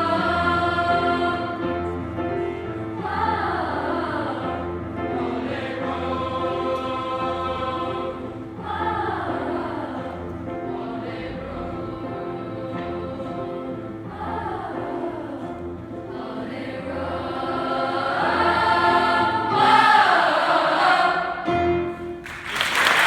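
School choir singing a medley of Christmas carols over a steady low accompaniment, with several sliding falls in pitch, ending on a final chord. Applause breaks out right at the end.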